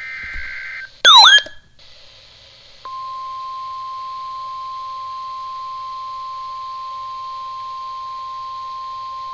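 NOAA Weather Radio EAS alert: the last screechy SAME header data burst ends just under a second in. A very loud, brief swooping electronic chirp follows. About three seconds in, the steady 1050 Hz warning alarm tone starts and holds, announcing a severe thunderstorm warning.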